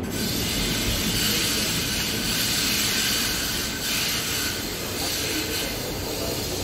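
Light-rail tram running along the track, heard from inside the passenger car: a steady low rumble under a rushing hiss of wheels on rails, with a brief dip about four seconds in.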